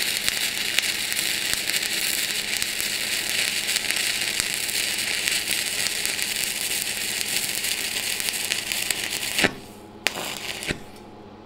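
Stick-welding (MMA) arc crackling and sizzling steadily as a 2.6 mm LB-52U electrode burns at about 60 amps. The arc stops about nine and a half seconds in, followed by a couple of sharp clicks.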